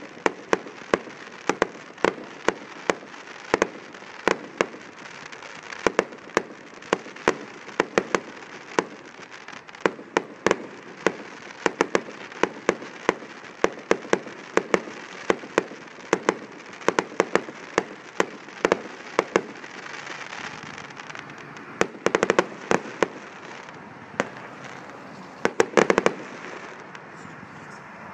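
Aerial fireworks display: shells bursting in a rapid series of sharp bangs, several a second, with denser flurries of bangs late on.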